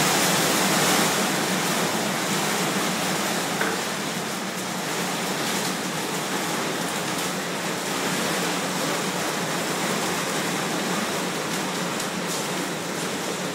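Heavy rain pouring down: a steady, dense hiss of falling water that gets a little softer over the first few seconds.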